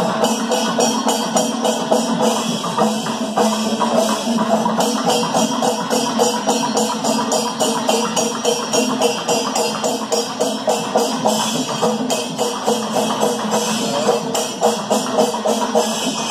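Chenda melam, the Kerala temple percussion ensemble: chenda drums and jingling elathalam hand cymbals beating fast, dense, even strokes over a steady held drone.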